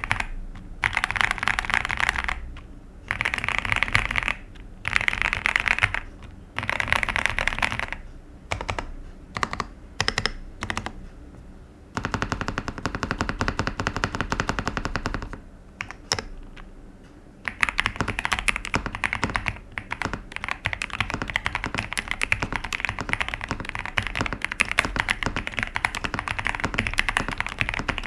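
Typing on a 61-key mechanical keyboard with stock Vertex V1 linear switches in an ABS plastic case. It comes first as quick bursts of keystrokes with short pauses between them, then as slower separate key presses, and from about two-thirds in as steady continuous typing.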